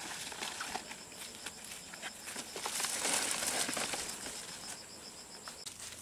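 Footsteps through grass and the brushing of leafy undergrowth as someone walks, irregular soft steps and rustles that grow louder about halfway through. A high, steady insect buzz runs underneath.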